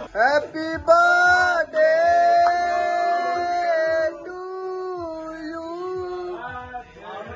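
A man's voice singing long held notes in a few drawn-out phrases, each sliding up into its pitch; it gets somewhat quieter about four seconds in.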